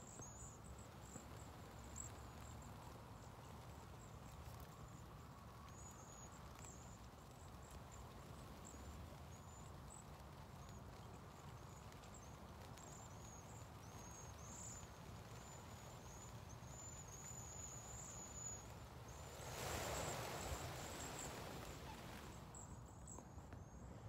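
Faint outdoor ambience: a low steady rumble with faint, short, high chirps scattered through it. About twenty seconds in, a rush of hiss rises for about three seconds and then drops away.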